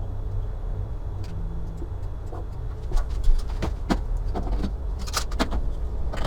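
DIY CNC router milling plywood with a single-flute end mill: a steady low rumble with a faint high tone, broken by scattered sharp clicks and ticks, the loudest about three seconds in.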